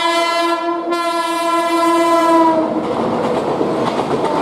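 The Kerala Express locomotive's horn sounds one long steady blast that stops about two and a half seconds in. It leaves the rumble and wheel clatter of the express running through the station without stopping.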